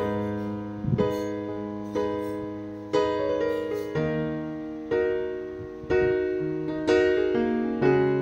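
Background music: electric piano chords struck about once a second, each fading away before the next.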